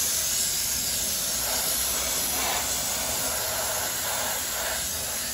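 Grant's handheld steam cleaner blowing a steady jet of steam from its nozzle, a continuous hiss.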